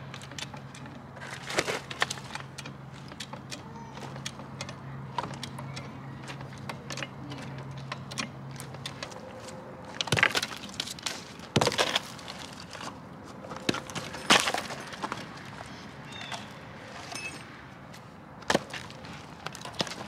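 Scattered sharp knocks of freshly cut log rounds and wood being handled and set down on gravel, several spread out with the loudest past the middle. A low steady hum runs under the first half.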